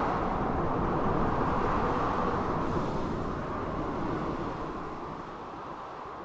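Storm ambience of blizzard wind and surf: a low rumbling rush of noise that slowly dies down.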